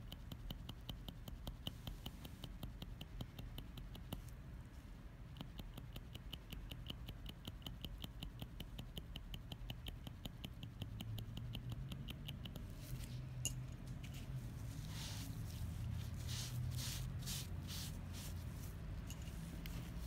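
A round shading needle in a manual microblading hand tool tapping pigment into practice skin by the soft-tap method: a quick, even run of light ticking taps. About two-thirds of the way through the taps turn fewer, louder and more scratchy.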